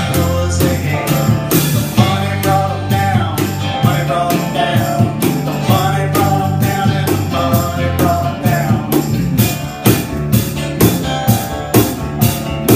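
Live band playing: banjo, acoustic and electric guitars, electric bass and drums. Held bass notes carry the first part, and from about nine seconds in a steady beat of drum hits comes forward.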